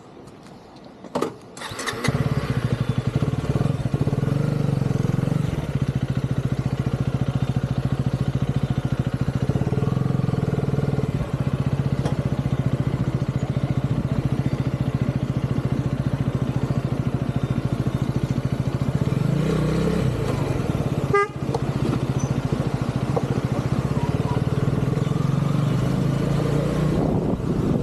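Husqvarna Vitpilen motorcycle engine coming to life about two seconds in after a click, then running steadily at a fairly even pitch, with one brief dip about two-thirds of the way through.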